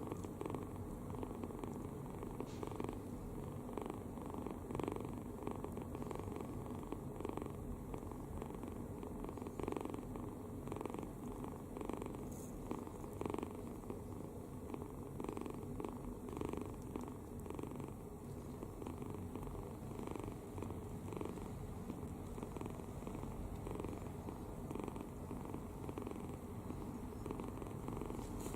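Kitten snoring in its sleep with its mouth open, a steady rumbling rasp repeating with each breath.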